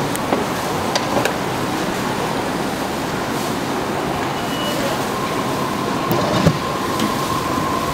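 Steady background bustle of a busy market food stall, with a few light knocks and clicks. A faint steady whine comes in about five seconds in.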